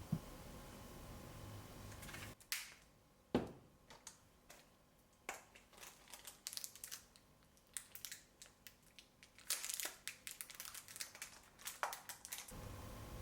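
Crinkling and crushing handling sounds: a run of irregular crackles and clicks with a few sharper knocks, the sharpest about three seconds in.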